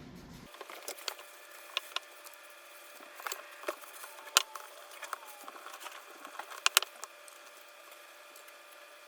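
Small clicks and taps from handling an Axial SCX24 Deadbolt mini RC crawler, over a faint steady whine. The two sharpest clicks come about four and a half and about seven seconds in.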